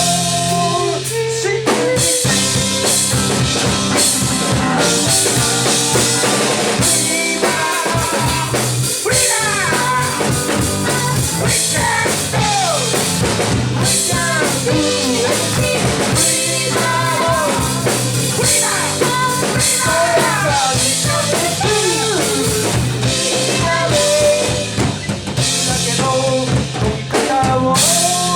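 A live band plays with a steady drum kit under sustained keyboard chords, while a lead line bends and slides in pitch through the middle of the passage.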